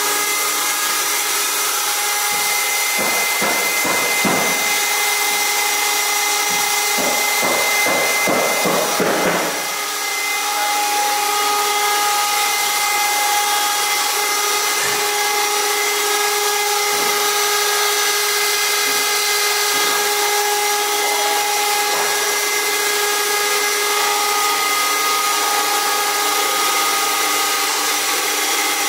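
Single-stage vacuum transformer oil purification machine running: a steady mechanical whine with several held tones over a hiss. A few low rumbles come between about three and nine seconds in.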